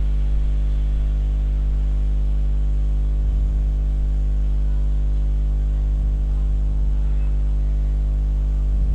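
Steady low electrical hum with a buzzing edge, unchanging throughout: mains hum on the recording.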